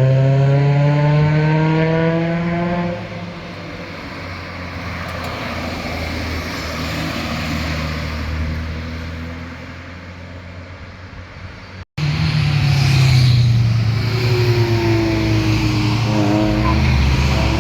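Performance cars passing at speed: an engine revs up and fades away as the car goes by, then after an abrupt break about twelve seconds in, another car's engine comes in, its pitch dipping and climbing again as it accelerates.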